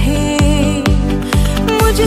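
Loud dance music with a steady kick drum about twice a second under sustained melody notes.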